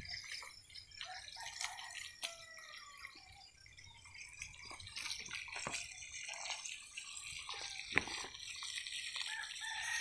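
Water from a garden hose splashing and dripping onto soil and plants, with many small irregular ticks and patters.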